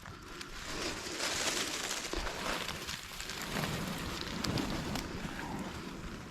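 A bird cooing over a noisy outdoor background.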